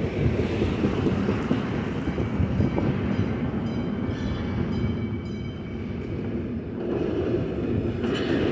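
Two-car light rail train approaching along street-running track, its running noise growing louder near the end as it draws close.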